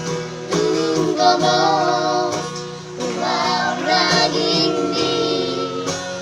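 A trio of children singing a song with acoustic guitar accompaniment.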